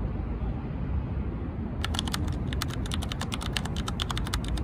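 Keyboard-typing sound effect: a rapid, irregular run of clicks starting about two seconds in and lasting about three seconds. Under it runs a steady low rumble of city traffic.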